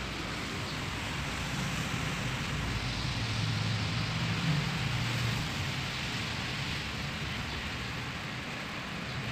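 Steady hiss of background noise with no music or speech, and a faint low hum from about three to six seconds in.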